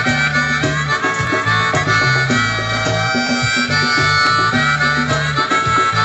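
Band music: a harmonica plays sustained melody notes over a plucked accompaniment and a bass line that changes note every half second or so.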